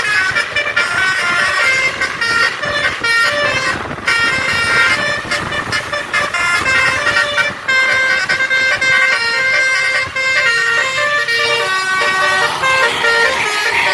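A bus's basuri musical air horn (telolet) playing a quick melody of short stepped notes, with vehicle noise beneath.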